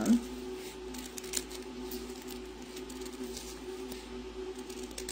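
Scissors cutting through several layers of folded paper: scattered soft snips over a steady low background hum.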